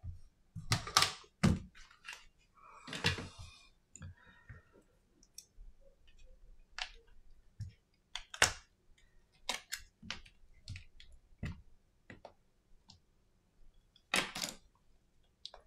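Scattered small clicks, taps and short scrapes of hands and a prying tool working an iPhone SE 2020 open on a silicone repair mat, with louder scraping rustles about a second in, about three seconds in and near the end.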